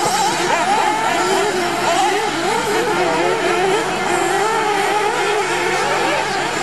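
Several 1/8-scale nitro RC buggies racing, their small glow-fuel engines revving up and down constantly. The high engine notes overlap and rise and fall as the cars accelerate and lift off around the track.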